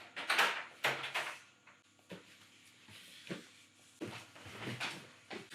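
Knocks, clicks and rustling of things being handled in a small room, with a noisier flurry of rustling in the first second and a half and then separate short knocks spaced about a second apart.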